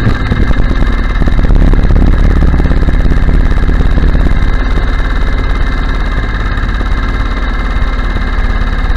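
Murray Kilowatt go-kart's small engine running steadily at a constant road speed while towing a loaded utility trailer.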